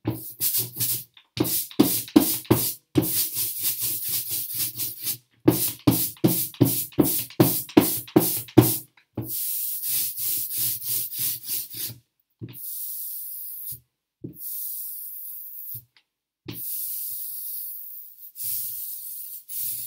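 Hand roller (brayer) rolled back and forth through blue block-printing ink on a slab. It starts with a quick run of short strokes, three or four a second. From about nine seconds in come four longer hissing rolls of one to three seconds each: the nice 'shush' of ink rolled out thin and ready to print.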